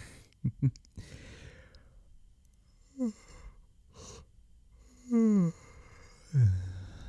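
A man's breaths and sighs, with three short hums that fall in pitch: one about three seconds in, a stronger one about five seconds in, and a lower one near the end.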